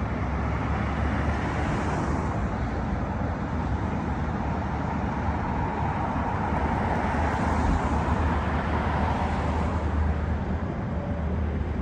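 Road traffic at a wide intersection: cars driving through, with engine and tyre noise over a steady low rumble. It swells as vehicles pass about two seconds in and again around eight seconds.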